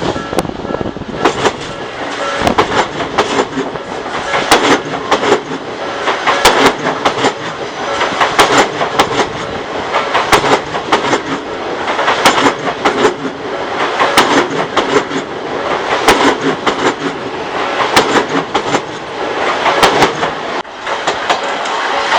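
An Odakyu Odawara Line electric train passing over a level crossing: a continuous rush of wheels on rail broken by many sharp clacks as the wheels cross the rail joints. The crossing's warning bell rings under it at the start and again near the end.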